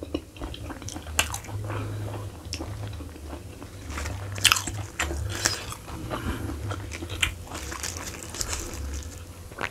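Close-up chewing and biting: wet, smacking mouth sounds of meat from a spicy roasted lamb head being eaten, with crisp crunches as folded raw lalapan leaves are bitten.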